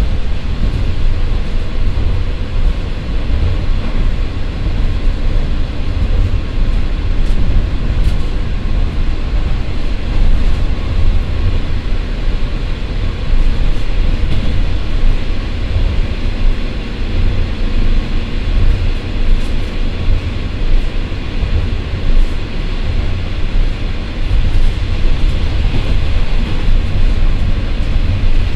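JR Shikoku KiHa 54 diesel railcar running at a steady speed of about 56 km/h, heard inside the passenger cabin. Its twin Niigata DMF13HS diesel engines and the wheels on the rails make a loud, steady, deep rumble, with a few faint clicks.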